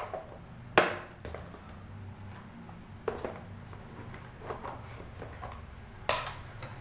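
Small clicks and knocks of kitchen things being handled on a counter: a sharp click about a second in, a few lighter taps later, and a plastic spice box being picked up near the end, over a low steady hum.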